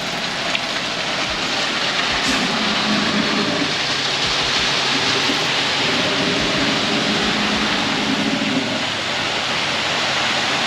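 Concrete pour in progress: a steady rushing noise with a low engine hum that comes in about two seconds in and fades near the end, typical of a concrete mixer truck running at the pour.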